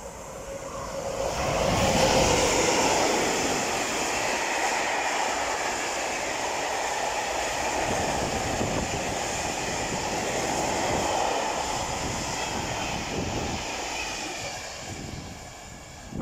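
SNCF BB 26000 'Sybic' electric locomotive passing with a freight train of covered hopper wagons. The sound swells as the locomotive goes by about two seconds in, then the wagons roll past with a steady rumble that fades as the tail of the train draws away near the end.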